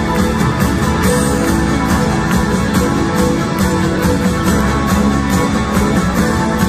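Live rock band playing an instrumental passage loudly: electric guitar over a steady drum beat.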